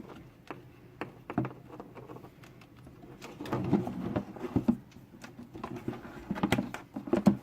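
Handling noises: scattered clicks, taps and rustles as an electrical wire is handled and fed through a drilled hole, busiest in two clusters in the middle and near the end.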